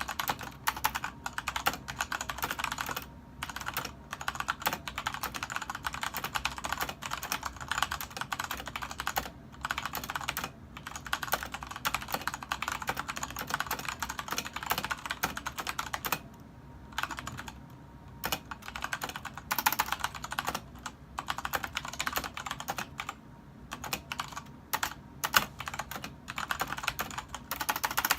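Fast, continuous typing on a LEOBOG K23 mechanical keyboard with Kailh Red linear switches, a dense run of key clicks broken by brief pauses.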